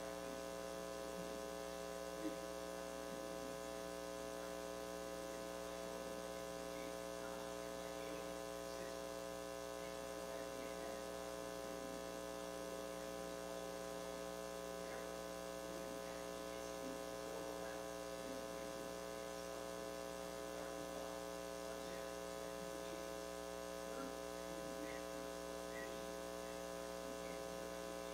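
Steady electrical mains hum, a faint buzz made of many steady tones.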